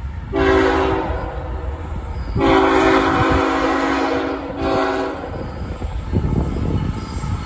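Diesel locomotive air horn sounding the grade-crossing signal: a long blast, a second long blast and a short one, in a multi-note chord. Under it runs the low rumble of freight cars rolling past, with a few wheel knocks.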